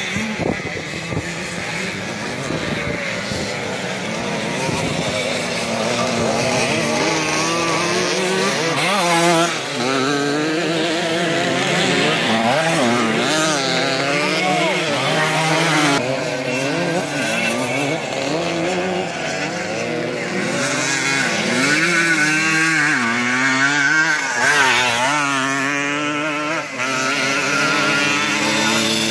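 Classic motocross bike engines racing around a dirt track, several at once. Their pitch rises and falls over and over as the riders open and close the throttle.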